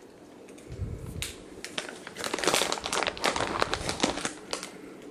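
Plastic snack bag crinkling as it is handled: a dense run of crackles, loudest in the middle, after a dull bump about a second in.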